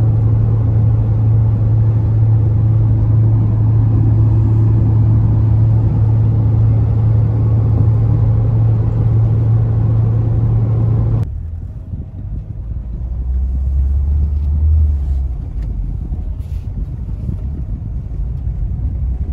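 Car cabin noise at highway speed: a steady, loud drone of engine and tyres. It cuts off abruptly about eleven seconds in to a quieter, lower running as the car moves slowly along a dirt road.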